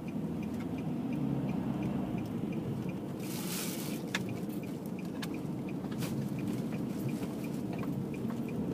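Car interior noise while driving: a steady low road and engine rumble, with a light regular ticking about three times a second. A short hiss comes about three seconds in, and a few sharp clicks follow.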